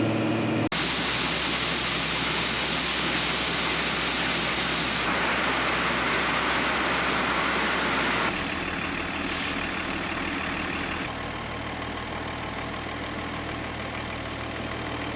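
Farm machinery engine running steadily, a constant hum with a hiss over it. The sound changes abruptly several times, about 1, 5, 8 and 11 seconds in, as clips are cut together.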